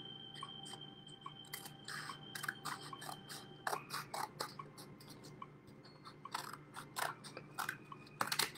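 Scissors cutting through a paper plate: a run of short, irregularly spaced snips as the blades close on the paper.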